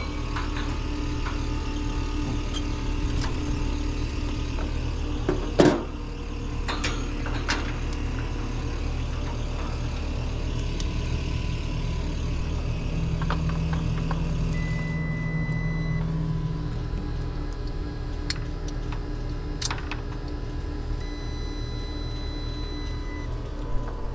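Steady low hum of running machinery, with scattered clicks and knocks of handling, the sharpest about five and a half seconds in. A high steady tone sounds for about a second and a half around the middle.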